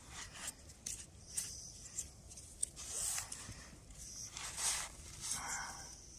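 Paracord being pulled through the hands and wrapped around two sticks to lash them together: a string of short swishes of cord sliding over wood, with a few small clicks.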